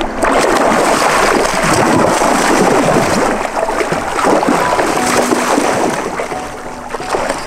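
Shallow river water rushing and splashing over stones in a riffle, heard close up. Faint music notes come in underneath about halfway through.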